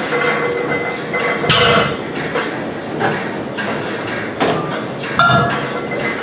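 Iron-plate-loaded barbell clanking during deadlift reps, the plates knocking and rattling as the bar is lowered to the floor and pulled again, with sharp clanks about a second and a half in and again near the five-second mark.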